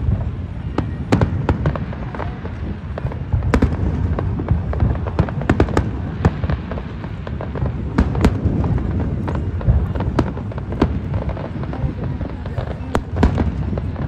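Fireworks display: aerial shells bursting in quick, irregular succession, sharp bangs and crackles over a continuous low rumble.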